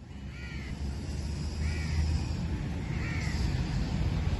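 A crow cawing three times, about a second and a quarter apart, over a low rumble that grows louder.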